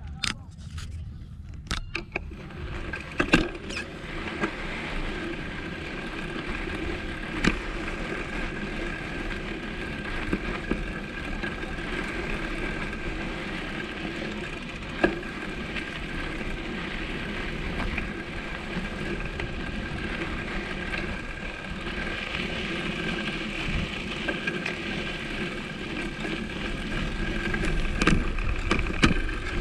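A vehicle riding along a rough track: steady running noise with a few sharp knocks, one about three seconds in, others around seven and fifteen seconds, and several near the end.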